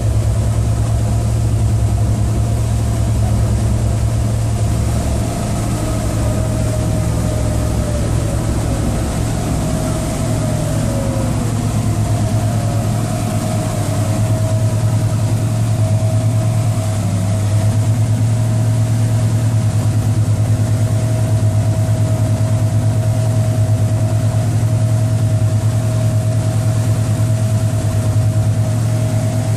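Engine of a wooden Chris-Craft inboard boat running steadily at cruising speed, a constant low hum with a thin steady whine above it, over the hiss of water churning in the wake.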